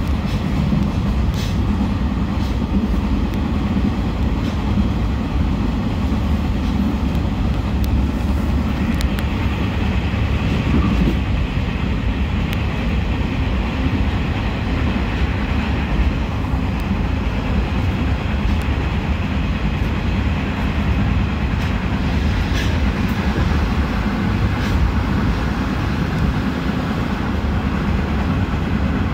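Taiwan Railways passenger train running along the track: a steady low rumble with a few faint clicks.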